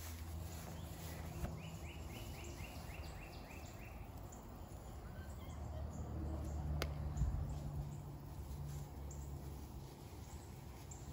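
Quiet outdoor ambience: a steady low hum, with a quick run of short high chirps, about four a second, from about one to four seconds in, and a single sharp click near seven seconds.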